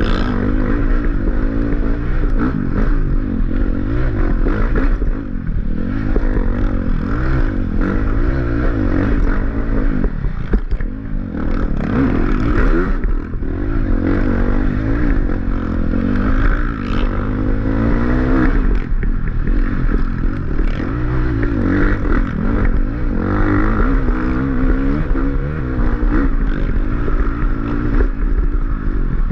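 Off-road dirt bike engine revving up and down without a break as it is ridden hard over rough trail, heard from on the bike, with clattering over the bumps.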